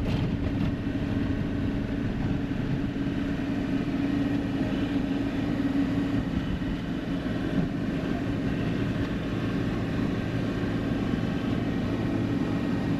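Tri-axle dump truck driving: a steady engine drone with road noise.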